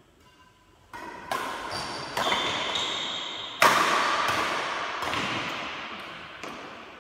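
Badminton rackets striking a shuttlecock during a doubles rally: sharp hits roughly once a second, each echoing on in a large hall. The loudest hit comes about three and a half seconds in.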